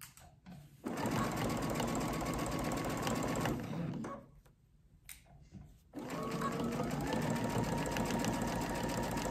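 Computerised sewing machine with a walking foot stitching, a fast even run of needle strokes. It is quiet for a moment at the start, runs for about three seconds, pauses for about two seconds, then runs again.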